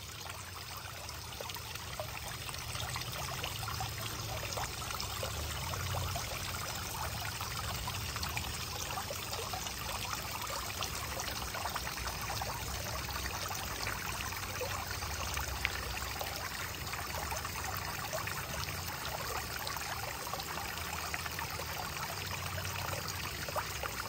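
Small pond fountain spraying thin jets of water that fall back onto the pond surface: a steady splashing of water.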